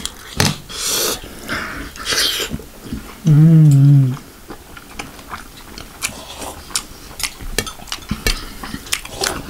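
Close-miked mouth sounds of a man eating: wet sucking and slurping of sauce off his fingers, a drawn-out hummed "mmm" about three seconds in, then a run of quick lip smacks and chewing clicks.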